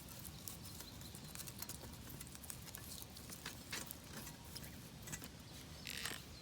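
Small twig fire in a pocket stove crackling, with scattered irregular snaps and ticks and a brief hiss near the end.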